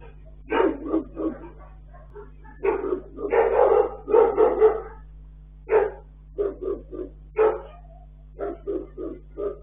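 Dog barking repeatedly in irregular runs of short barks, densest about three to five seconds in, over the steady low hum of a security camera's microphone.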